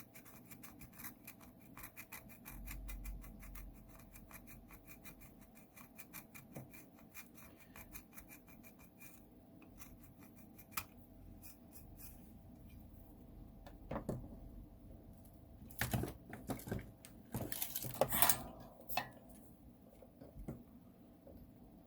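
Screwdriver tip scraping the green solder mask off a copper trace on a remote control's circuit board: a run of rapid, light scratching strokes for about the first nine seconds. Later come a few louder knocks and clatter of tools being handled.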